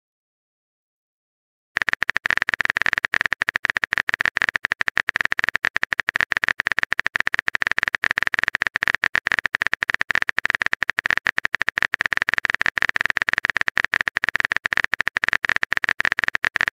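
Keyboard typing sound effect of a texting app: a fast, steady stream of clicks that starts about two seconds in.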